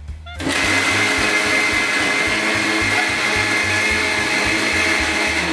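Countertop blender switched on about half a second in, running steadily at speed as it purées cooked breakfast food and orange juice into a liquid.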